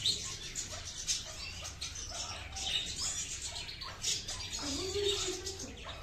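Caged Himalayan goldfinch calling in short, high chirps and twitters, scattered irregularly, with a few light clicks among them.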